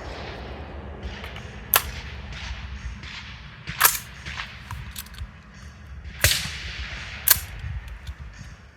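Four sharp gunshots from a firearm fired at close-range targets, spaced unevenly about one to two seconds apart, with fainter clicks between them.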